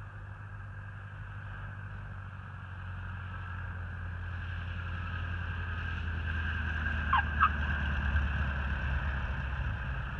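Light single-engine airplane's engine and propeller at low power on landing approach, a steady drone growing louder as it nears. About seven seconds in, two short squeaks of the tires as the main wheels touch down.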